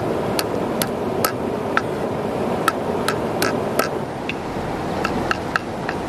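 A knife chopping garlic on a wooden chopping board: about a dozen sharp knocks at an uneven pace. A stream runs steadily underneath.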